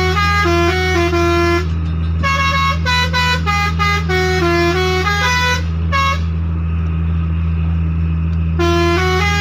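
Six-trumpet 'basuri' telolet musical air horn playing a fast tune of short stepped notes over a steady low hum. The tune breaks off about two-thirds of the way in, leaving only the hum, then starts again near the end.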